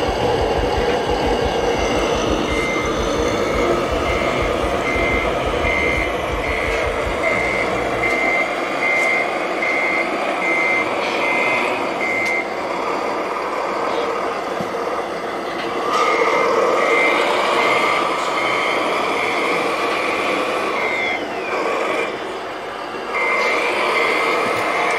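Radio-controlled scale truck's electronic sound module sounding its reversing beeper: a steady high beep repeated just under twice a second, pausing for a few seconds in the middle. Underneath runs the continuous noise of the model machines, and a deep rumble stops about eight seconds in.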